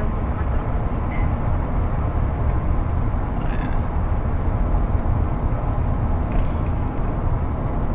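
Steady low rumble of road and engine noise from a moving vehicle, heard from inside the cabin.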